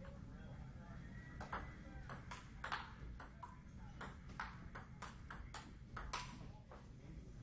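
Table tennis rally: the ball clicking off the bats and the table, about a dozen quick strikes starting a little over a second in, two of them louder than the rest, over a steady low hum.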